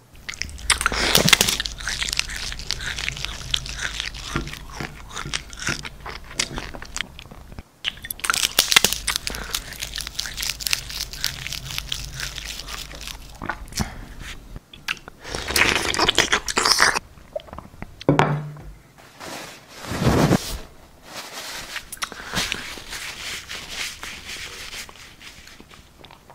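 Close-miked ASMR eating sounds: loud crunching bites and chewing in several bouts, then a cloth napkin rubbing across a plate near the end.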